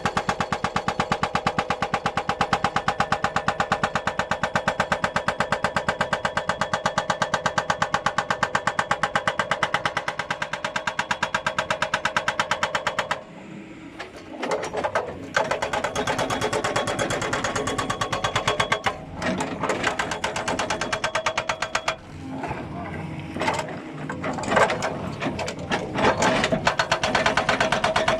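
Hydraulic breaker on a Doosan excavator hammering in a rapid, steady rhythm. About halfway through it stops, gives way to irregular knocks and short pauses, and picks up its steady rhythm again near the end.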